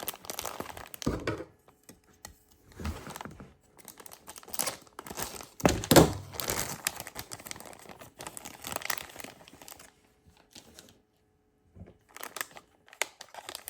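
Packaging crinkling and rustling as sealed toy packs are handled and sorted, in irregular bursts, with the loudest crackle about six seconds in.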